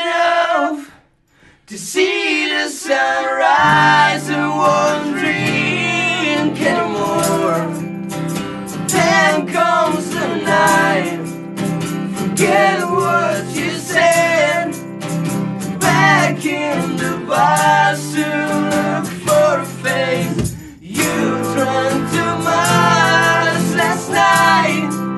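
Live acoustic band song: male voices singing over strummed acoustic guitar and electric guitar chords. It breaks off briefly about a second in, then the singing resumes and the guitars come in fuller a couple of seconds later.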